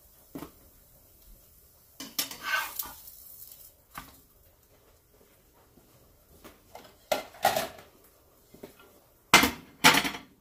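A handful of separate clinks and knocks from cookware being handled: a spatula against a nonstick frying pan and dishes being moved about, the loudest knocks near the end.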